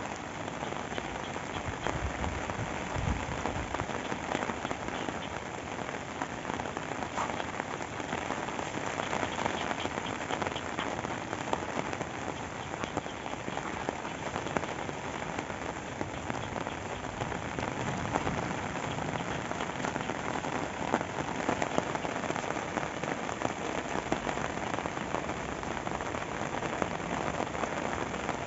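Steady rain falling, with many individual drops heard hitting close by, and a brief low thump about two to three seconds in.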